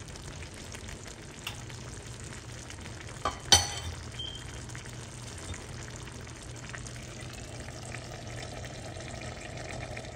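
Pot of rice and chicken gizzards simmering in broth, a steady bubbling hiss. A sharp knock about three and a half seconds in is the loudest sound.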